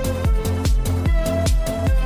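Electronic background music with a steady kick-drum beat, about four strokes a second, under a synth melody.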